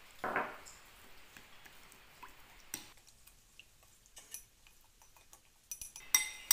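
Metal spoon stirring a runny mixture in a glass bowl: a soft scrape near the start, then scattered light ticks and clinks of the spoon against the glass, with a sharper ringing clink near the end.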